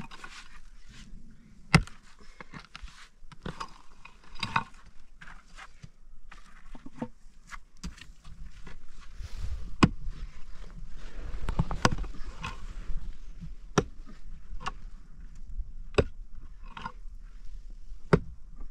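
Wood being chopped: sharp strikes about every two seconds, with scraping and rustling between them.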